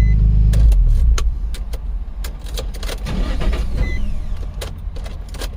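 Nissan 350Z's 3.5-litre V6 running for about the first second, then cutting off. It is then cranked with uneven rumbling and a series of sharp clicks, reluctant to restart.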